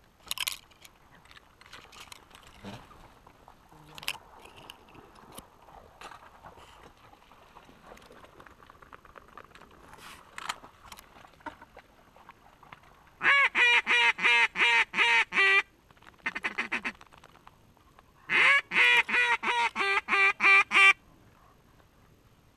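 Mallard duck call blown close by: two runs of loud, evenly spaced quacks of about nine or ten notes each, about 13 s and 18 s in, with a short, quieter, faster run between them. The call is calling in mallards flying over the roost. Faint rustling and clicks come before the calling.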